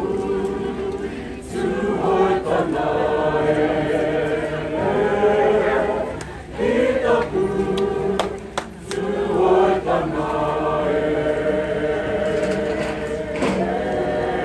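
Māori kapa haka group singing together, women's and men's voices in unison, in phrases of a second or two with short breaks between.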